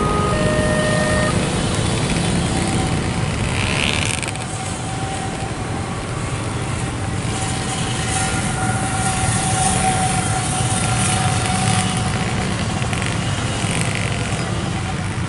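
Steady engine and road noise from a crowd of motorcycles waiting at a railway level crossing. A pitched horn sounds in two blasts until about a second in, and a long steady tone follows through the middle.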